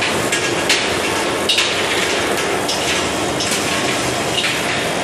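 Hot steel ball rolling mill working a glowing bar between its grooved rolls: a loud, steady rushing of water and steam, with a sharp knock roughly once a second.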